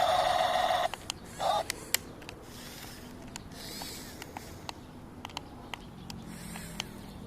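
A chicken calls loudly for about a second, then gives a shorter second call, with scattered light clicks around it.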